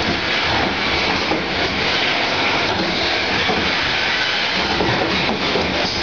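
Semi-automatic pouch gel filling machines running: a steady mechanical noise with a light, irregular clatter and hiss.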